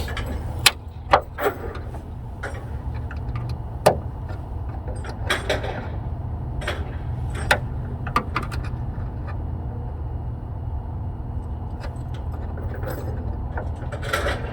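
Scattered sharp metallic clicks and knocks of hand work with a screwdriver and fittings, fitting a gas lift strut to a Tesla Model 3's front trunk lid, at irregular intervals over a steady low rumble.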